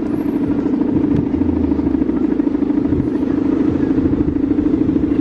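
The humming bow (guangan) of a large Balinese bebean kite droning steadily in the wind: one low buzzing tone with a fast pulse.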